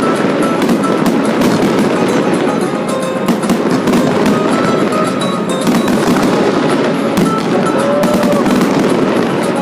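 Fireworks display: a dense, continuous crackling and popping of bursting shells, with music playing underneath.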